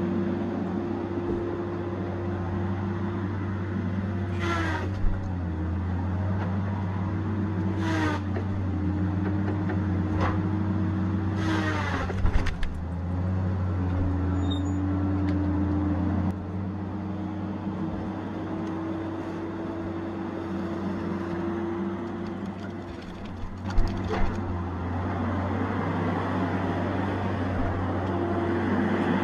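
Tigercat 870C feller buncher running steadily under work, an engine hum with a whine whose pitch dips for a moment at a few points. A few short sharp noises break in, the loudest near the middle and twice close together later on.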